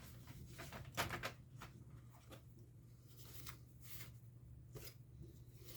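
Faint scattered clicks and taps of hands handling the opened laptop's plastic and metal parts, a small cluster about a second in and single ticks after, over a low steady hum.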